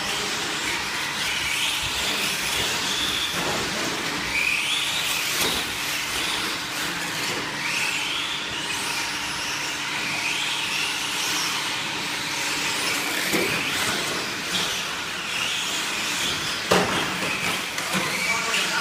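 Electric 4x4 short course RC trucks racing: their motors whine in rising sweeps again and again as they accelerate, with a few sharp knocks, the loudest about 17 seconds in.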